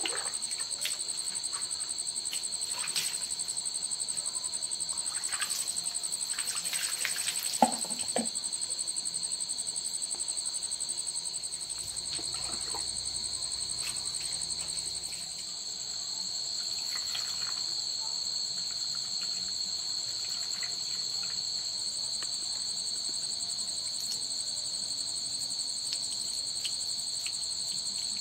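Insects chirring in a steady, high, continuous trill, with scattered faint clicks and one short, sharp knock about seven and a half seconds in.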